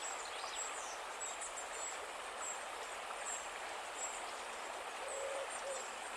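Faint outdoor ambience over a steady hiss: a bird repeats short, high chirps about once a second, and a brief low hooting call comes about five seconds in.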